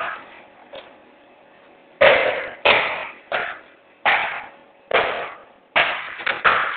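A series of sharp knocks of hard objects, about one every three quarters of a second from about two seconds in, coming quicker near the end.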